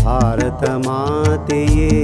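A man singing a Kannada song in a wavering, ornamented melodic line over tabla strokes, with a held note near the end.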